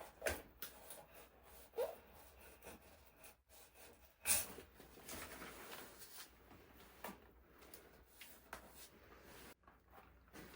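Faint, scattered handling noises: short knocks and clicks with some rubbing. The clearest ones come about a third of a second, two seconds and four seconds in.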